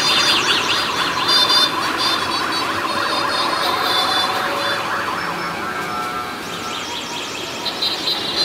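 A din of many overlapping street-traffic horns, several of them electronic horns warbling rapidly up and down like small sirens, with some steady high horn tones among them.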